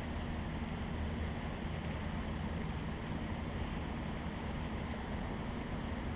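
Steady rushing of a flowing stream, an even noise with no distinct events.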